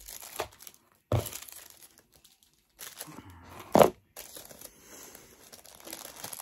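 Packaging being crinkled and torn open by hand, with two louder rips, about a second in and just before four seconds, and quieter crinkling between them.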